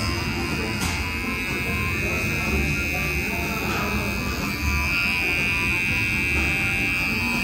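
Electric hair trimmer buzzing steadily as it cuts hair around the ear, over background music.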